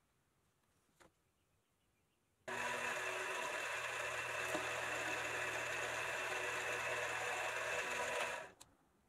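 A small metal lathe switches on abruptly about two and a half seconds in and runs steadily with a motor hum for about six seconds, while a hacksaw blade is held against a black rod spinning in its three-jaw chuck to cut off a small disc. The lathe then winds down near the end.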